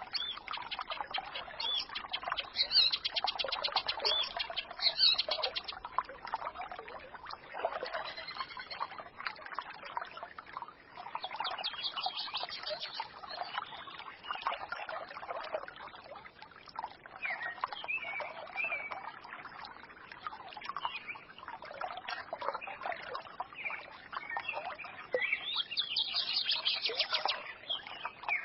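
A small forest stream babbling steadily, with small songbirds chirping and trilling over it: fast trills a few seconds in and again around the middle, and a run of chirping near the end.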